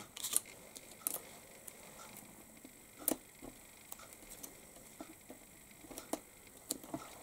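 Faint handling of cardstock pieces and foam tape strips on a cutting mat: scattered light taps and clicks, about one a second.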